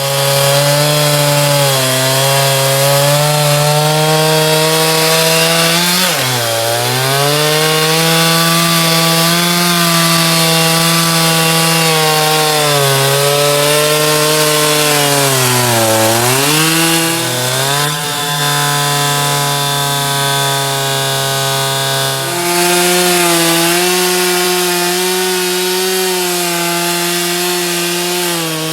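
Two-stroke chainsaw on an Alaskan chainsaw mill, running at full throttle while ripping a pine log lengthwise into boards. The engine pitch sags twice under load, about six and sixteen seconds in, and recovers each time. It dips lower and quieter for a few seconds after about eighteen seconds, then picks back up.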